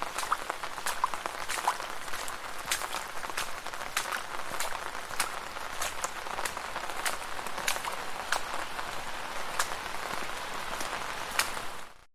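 Steady rain falling on a street, a hiss dotted with many sharp, irregular drop strikes close by; it cuts off abruptly just before the end.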